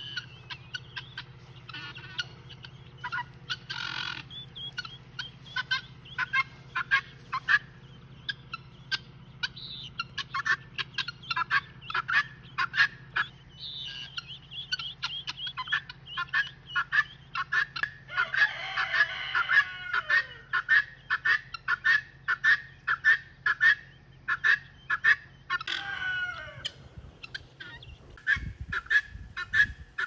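A brood of young chicks peeping rapidly and continuously, with the mother hen calling among them, loudest about two-thirds of the way through and again near the end.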